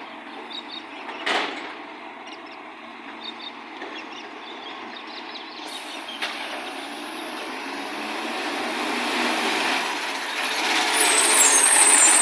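Garbage truck engine running with an exhaust leak, its noise swelling steadily from about six seconds in, with a hiss joining it about the same time. One sharp knock about a second in.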